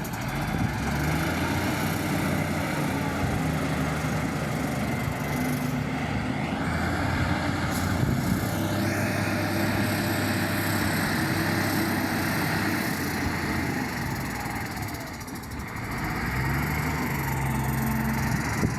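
Diesel engine of an earthmoving machine running under load, revving up and down, easing off briefly about fifteen seconds in before picking up again.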